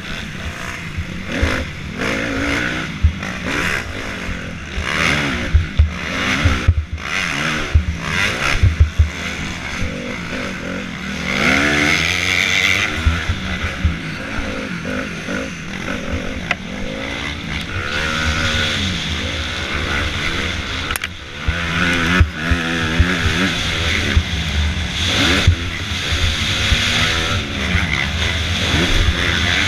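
Motocross bike engine ridden hard on a dirt track, heard on board: the pitch repeatedly rises and drops as the rider accelerates, shifts and backs off. Sudden knocks and wind noise come through, most of them in the first ten seconds.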